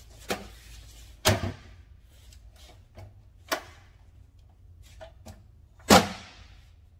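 A folding metal step stool being set down and opened: four sharp knocks and clanks, a loud double knock about a second in, and the loudest clank near the end with a short ring after it.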